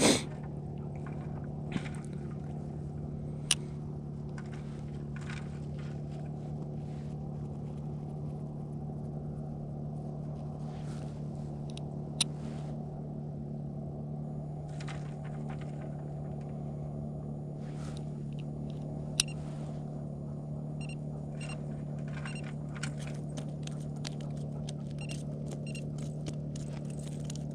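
A steady, low mechanical hum from a running motor, unchanging throughout, with a few sharp clicks and some faint ticking near the end.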